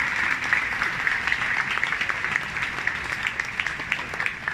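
Audience applauding, a dense patter of many hands clapping that slowly fades.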